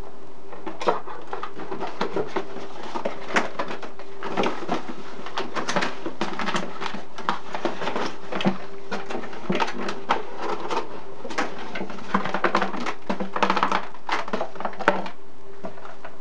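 Cardboard and plastic packaging being handled: a dense run of rustles, scrapes and light taps as a cardboard box is pulled apart and a clear plastic tray is picked up. Underneath runs a steady hum from a loud boiler.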